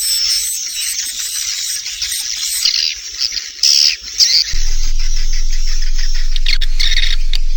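Recorded edible-nest swiftlet lure call: dense, high twittering chirps, the 'inap' roosting call played to make young swiftlets settle and stay overnight in a swiftlet house. A steady low hum joins about halfway through.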